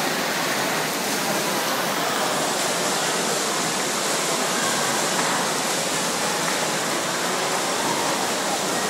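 Steady churning splash of several swimmers racing freestyle in a pool, arms and kicks beating the water.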